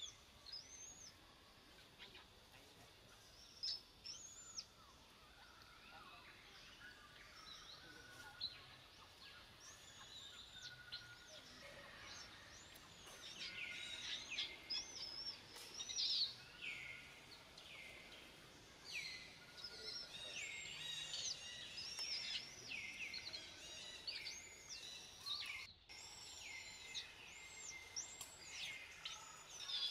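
Baby macaque screaming in distress: repeated high, arching cries that rise and fall in pitch, scattered at first and coming thick and fast from about halfway through.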